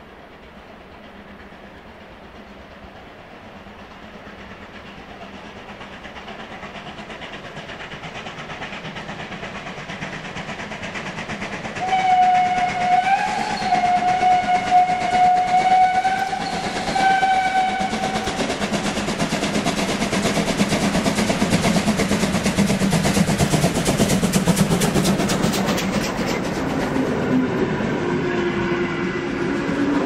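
Steam locomotive approaching and growing steadily louder, then sounding a long steam whistle about twelve seconds in that lasts some six seconds. It then passes close with rapid exhaust beats, and its coaches roll by on the rails near the end.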